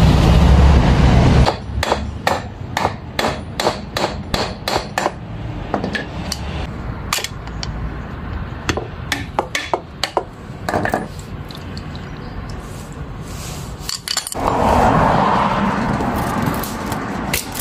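Sharp metal taps and knocks, a tool striking the housing of a small household booster water pump while its front casing is worked loose. They come two or three a second at first, then at irregular intervals. A low hum cuts off about a second and a half in.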